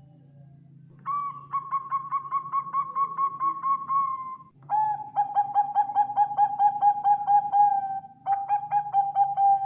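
Zebra dove (Bangkok perkutut) singing: three rapid, staccato cooing phrases. The first starts about a second in and is higher-pitched; the second and third are lower, with a short break near the end.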